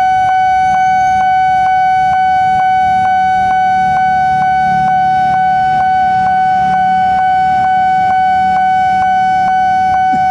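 Railway level-crossing warning bell ringing continuously at a single high pitch, struck about twice a second, sounding while the barrier is down because a train is approaching.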